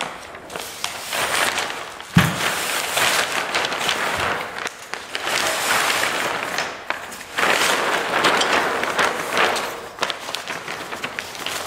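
Fabric skin of an ultralight's vertical stabilizer rustling and swishing in long waves as it is pulled over the tube framework, with a single thump about two seconds in.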